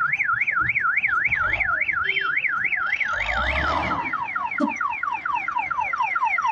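Electronic multi-tone reversing siren on a wheel loader backing away from a tipper truck. It is a rapid up-and-down warble, about three cycles a second, that switches about four seconds in to repeated falling chirps, about four a second.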